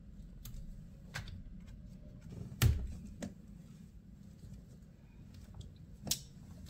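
Scattered small clicks and handling noises of hands working an old steering wheel cover off the wheel, with a loud knock about two and a half seconds in and a sharper one near the end.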